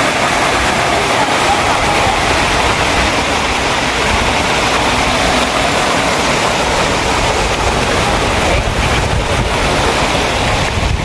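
Rows of arcing fountain jets splashing down into a pool, a steady rush of falling water.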